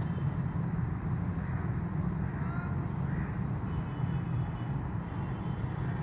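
Steady low rumble of a GE U20 diesel-electric locomotive approaching at speed from a distance, with no change in level.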